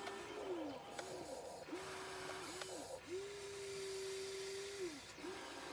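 Electric motor whine of a mini RC excavator, running in about six start-stop bursts, one long one in the middle, each sagging in pitch as it stops, over a steady hiss.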